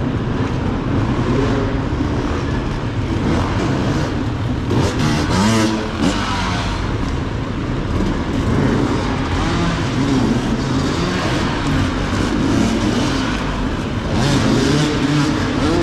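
Enduro motorcycle engines revving on the track, their pitch rising and falling as the riders throttle on and off.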